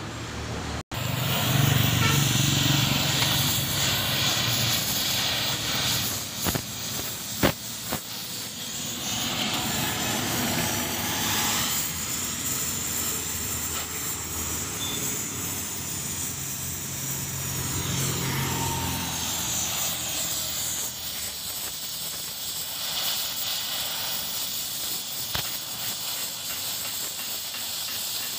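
Gas welding torch flame hissing steadily, with a low hum underneath and a few short sharp clicks.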